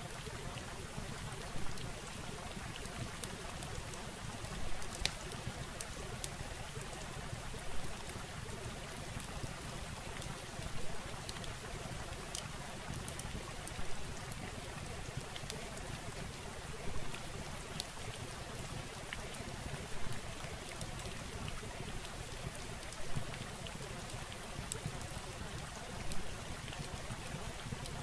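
Steady rushing noise with faint scattered crackles and a brief swell in loudness about every three seconds.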